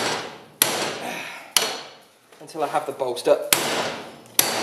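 Hand hammer striking a slot drift to drive it through a punched slot in a red-hot steel bar held in a vise: four sharp blows, each ringing out and dying away, with a longer pause between the second and third.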